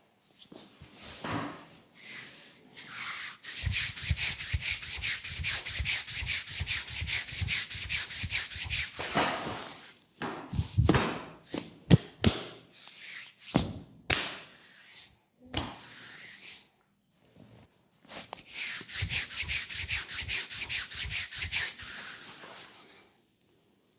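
Hands rubbing fast back and forth over bare skin in a leg massage, about five strokes a second, in two long runs. Between the runs come scattered slaps and sharp clicks.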